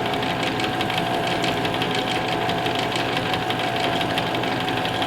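Metal lathe running steadily at speed, a thin steady whine over a fast, fine rattle from its drive.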